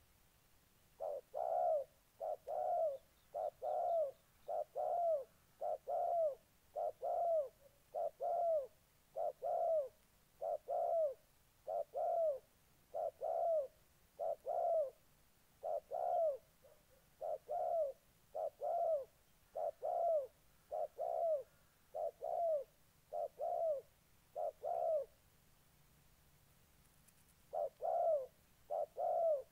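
Spotted doves cooing: a short double coo repeated steadily, about three times every four seconds, with a pause of two or three seconds near the end before it starts again. It is the aggressive cooing of a male dove challenging a rival.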